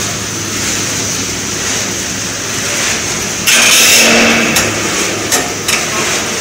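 Wheat-chip snack extrusion line machinery running steadily with a constant hum and hiss. About three and a half seconds in there is a brief louder rustling clatter, then a few sharp clicks, as a hand scoops puffed chips from the collecting tray.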